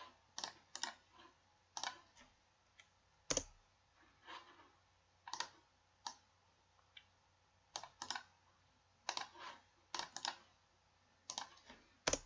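Faint, irregular clicks of a computer mouse and keyboard, several in quick pairs like double-clicks, with one louder click and a low thump about three and a half seconds in.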